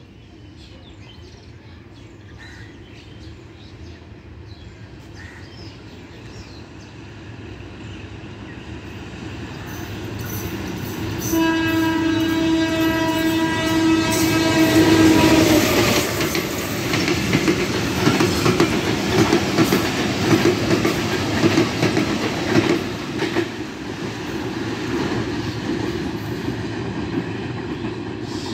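Diesel-electric locomotive approaching and growing louder, then sounding one long horn note for about four seconds, starting about eleven seconds in. It then passes close, engine running, with its passenger carriages clattering rhythmically over the rail joints.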